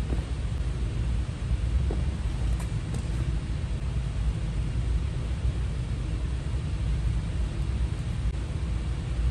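Steady low background rumble, with a few faint light clicks about two to three seconds in.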